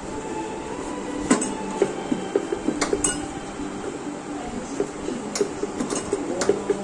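Kulcha dough being pressed by hand and rolled out on a wooden rolling board, with a few sharp clinks and taps scattered through, over a steady hum.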